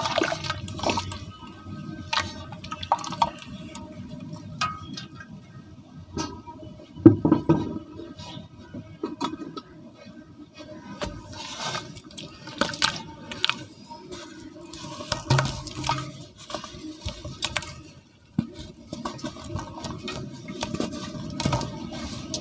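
Water splashing and sloshing as hands dip and squeeze soft cement chunks in a basin of water, with irregular wet splashes, the loudest about seven seconds in.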